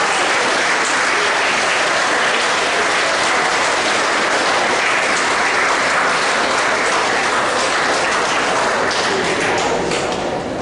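Audience of students and staff applauding in a large hall, a steady dense clapping that tapers off in the last second or so.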